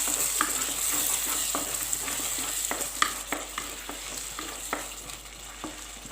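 Cooked chopped tomatoes sizzling in hot oil in a pan while a spoon stirs them, with sharp knocks of the spoon against the pan every half second or so. The sizzle is loudest in the first few seconds and thins out toward the end.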